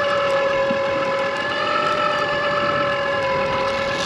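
Electric deep-drop fishing reel's motor whining at a steady pitch as it winds the rig up from the bottom.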